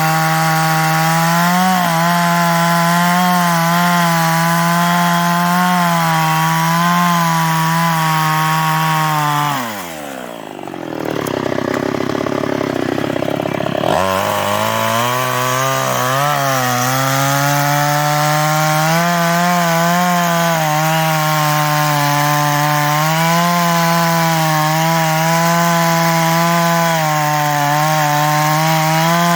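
New West 588 two-stroke chainsaw running at high revs, cutting into an old teak trunk. About ten seconds in the revs fall away and it runs slower and quieter for a few seconds, then it is throttled back up and keeps cutting.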